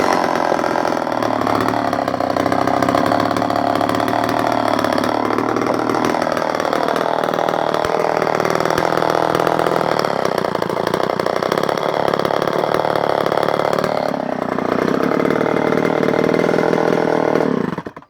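Remington SL4 59cc two-stroke chainsaw running at high revs, its pitch sagging and recovering several times as it cuts through wood, then shut off suddenly near the end.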